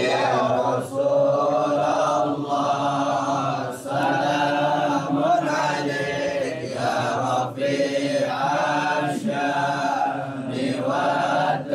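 Islamic devotional chanting by men's voices, long melodic phrases with short breaks between them.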